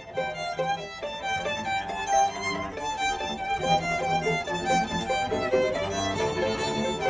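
String quartet playing: violins and lower strings moving through a passage of short, quickly changing notes.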